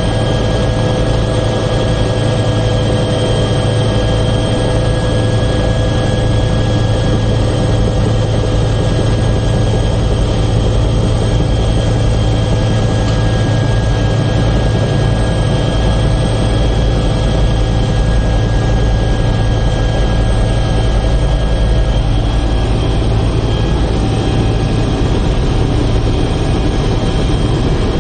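Helicopter in flight, heard from inside the cabin: a loud, steady engine and rotor drone with constant whining tones over it.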